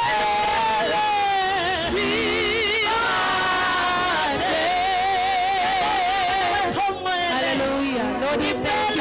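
Gospel worship music: a singing voice holding long notes with wide vibrato, with other voices singing alongside.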